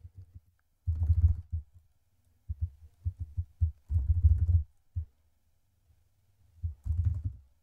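Typing on a computer keyboard: several short runs of keystrokes with pauses between them.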